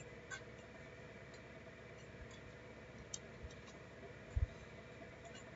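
Faint, scattered clicks of a computer mouse and keyboard over a steady electrical hum, with a soft low double bump about four seconds in.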